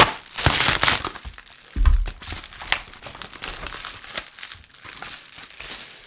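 A knife slitting open a plastic bubble-mailer package: a burst of tearing in the first second, a thump about two seconds in, then quieter crinkling and rustling of the plastic mailer as it is handled.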